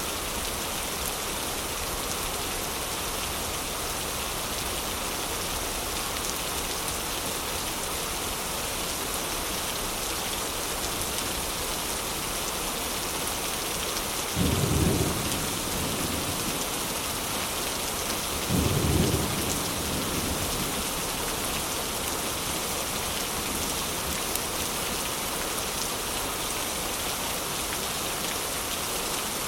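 Heavy rain falling steadily, with two short low rumbles of thunder about halfway through, a few seconds apart.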